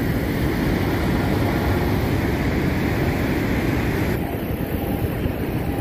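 Steady loud roar of the water at Niagara Falls, strongest in the low range; its higher hiss drops away about four seconds in.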